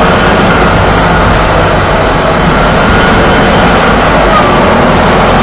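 Airsoft tank's engine running steadily as the vehicle drives over a dirt track, heard from on board, with loud, even rumble and road noise.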